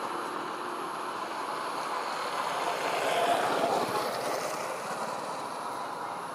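Steady rushing outdoor background noise that swells about three seconds in and then eases off, with a faint high steady whine above it.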